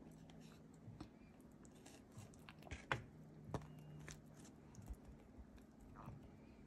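Near silence with faint, scattered clicks and taps of a wooden spoon against a paper plate as soft peach cobbler is spooned over, two louder taps about three and three and a half seconds in, over a faint low steady hum.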